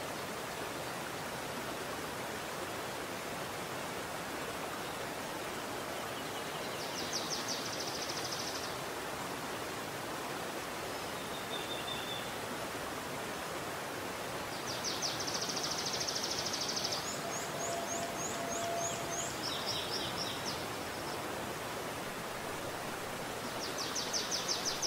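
Steady rush of a shallow forest stream flowing over rocks. Songbirds sing short, rapid high trills over it several times, one of them ending in a run of quick falling notes.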